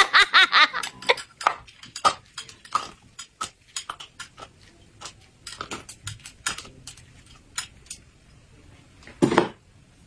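Close-up eating sounds: irregular chewing and lip-smacking on crayfish, with small clicks of chopsticks against a plate. A short, louder voiced sound, like an 'mm', about nine seconds in.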